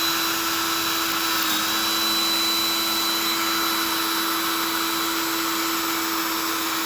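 Cordless drill running steadily at speed, its bit grinding into the back of an iPhone SE: a steady motor whine over a hiss of cutting, dipping slightly in pitch about a second and a half in.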